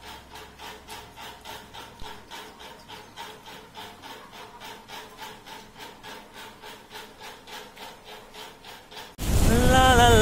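Rapid, even rasping strokes, about four or five a second, like something being sawn or scraped. About nine seconds in they cut off abruptly and a much louder passage with a pitched voice begins.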